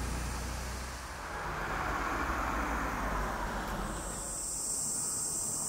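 Outdoor ambience: a low rumble with a hiss that swells and fades, then about four seconds in a steady high insect buzz sets in.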